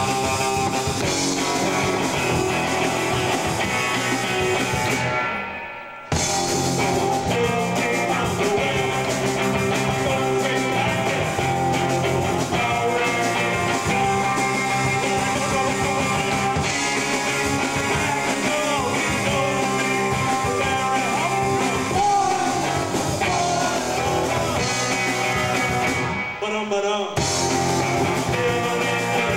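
Rock band playing live, with electric guitar and drum kit. The sound fades out about five seconds in and cuts back in abruptly, and drops out briefly again near the end.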